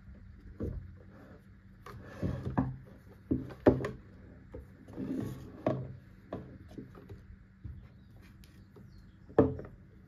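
Plastic body of a steam iron being handled on a wooden tabletop: irregular knocks and sliding rubs as it is turned and set down, with a sharp knock about three and a half seconds in and another near the end.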